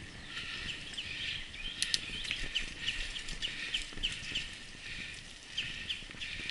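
Mountain bike riding down a dirt singletrack: rough rumble of the ride, with a run of short, high chirping squeaks about three a second in the middle and a sharp click just before that.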